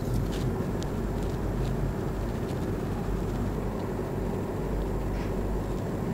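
Steady low background rumble with a low hum, carrying a few faint soft ticks.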